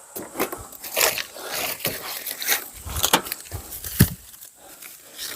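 Wooden firewood pieces knocking and clattering against each other as they are handled, with irregular knocks several times a second and one heavier thunk about four seconds in.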